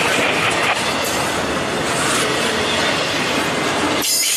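Intermodal freight train cars, trailers on flatcars and double-stack containers, rolling past: a steady wheel-on-rail rumble and clatter, with a brief high squeal from the wheels near the end.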